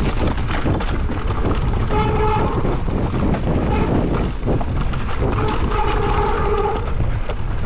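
Mountain bike descending a rough trail: constant wind buffeting on the microphone with the rattle and knocking of tyres and frame over rocks and gravel. A steady whine comes in briefly about two seconds in and again from about five and a half to seven seconds.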